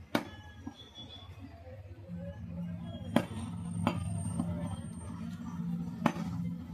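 A butcher's knife chopping chicken on a wooden stump block: four sharp chops, spaced about one to three seconds apart, over a steady low hum that starts about two seconds in.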